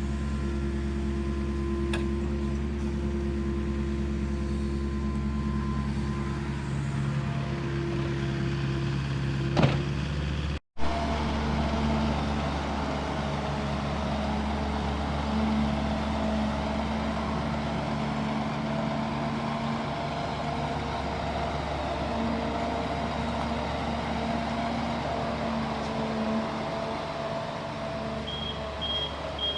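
Caterpillar 307 excavator's diesel engine running steadily under load while digging soil, with a single sharp knock about a third of the way in. A row of short, high beeps sounds near the end.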